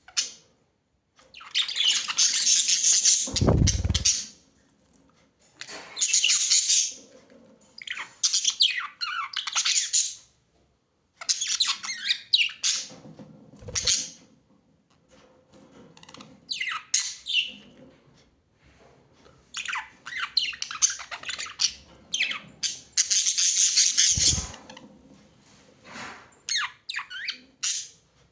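Pet birds calling in repeated harsh, squawking and chattering bouts of a second or few, with short pauses between them. A few brief low thuds occur, about three times.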